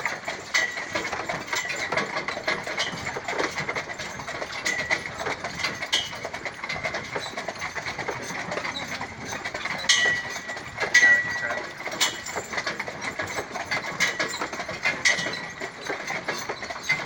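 A carriage team of a Haflinger and an Appaloosa walking: hooves clip-clopping in irregular sharp clicks with a short metallic ring, over a steady rattle of the carriage and harness.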